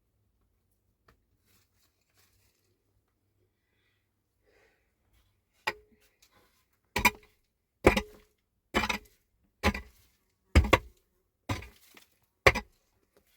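Eight sharp knocks, hard strikes on something: one on its own about halfway through, then seven at an even pace of about one a second. Several leave a short ring.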